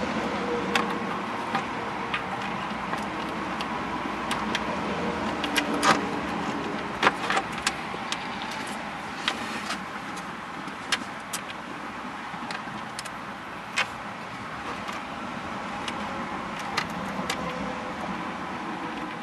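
Irregular sharp clicks and taps of plastic and metal as long screws are worked into the holes of a plastic steering column shroud, about fifteen in all and loudest around six to seven seconds in, over a steady background hiss.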